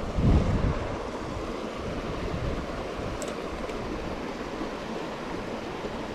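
Steady rush of flowing creek water, with a brief low thump about half a second in.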